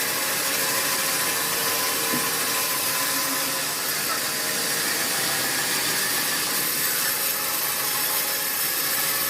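Sawmill machinery running steadily: a constant mechanical noise with a faint steady hum, no breaks or sudden knocks.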